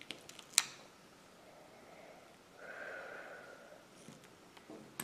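Scissors snipping through clear Gorilla tape: a few small clicks, then one sharp snip about half a second in. A faint soft hiss follows near the middle, and a few light clicks come near the end.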